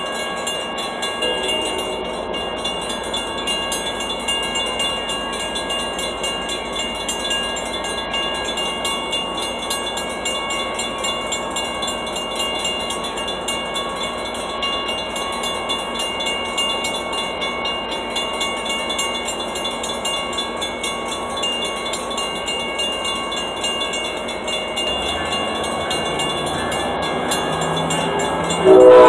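A railroad warning bell rings steadily, struck over and over, as a Metra F59PHI-hauled commuter train approaches. The train's rumble builds over the last few seconds, and its horn starts to blow loudly at the very end.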